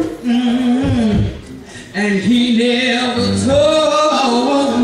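Youth gospel choir singing a praise song, one voice holding long, steady notes over the group, with a short lull about a second and a half in.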